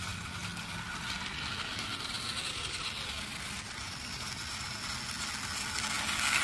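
Battery-powered toy trains, a Chuggington Mtambo and a Thomas Kana, running on plastic track: a steady small-motor whir with the wheels rattling on the rails, getting a little louder near the end as the Mtambo train comes close.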